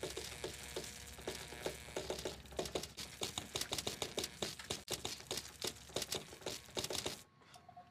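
Spark gap of an early spark-gap radio transmitter crackling, a rapid, irregular train of sharp electric snaps that stops about seven seconds in.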